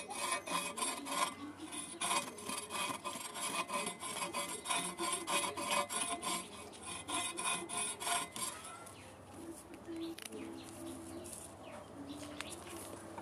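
Taro stolons (kochur loti) being peeled against the blade of a boti: a run of quick rasping, scraping strokes as the stringy skin is stripped off. The strokes thin out and soften after about eight seconds.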